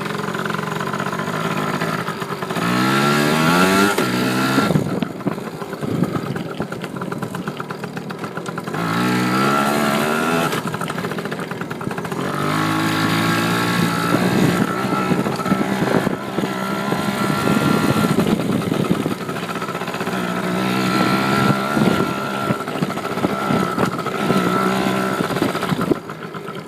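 Dirt bike engine running and accelerating, its pitch climbing in several separate runs with steadier running between them.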